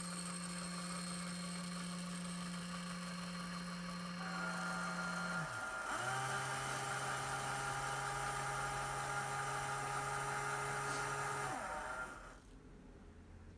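RCBS ChargeMaster 1500 and Hornady Auto Charge electric powder dispensers running side by side, their trickler-tube motors whirring steadily as they dispense a powder charge. A higher-pitched whine joins about four seconds in, the low hum drops in pitch about six seconds in, and both motors stop about twelve seconds in.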